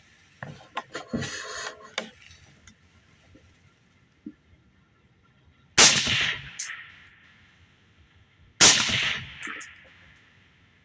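Two suppressed rifle shots about three seconds apart from a 5.56 AR-platform rifle wearing a Silencer Co Chimera 300 suppressor, each a sharp crack with a short echo trailing off. Near the start there is a brief metallic clatter.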